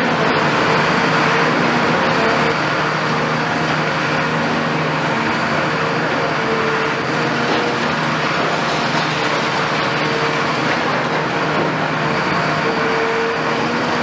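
Cat 340F long-front demolition excavator's Cat C9.3 ACERT diesel engine running steadily under load, with a hydraulic whine that swells and fades every few seconds as the boom and demolition tool work.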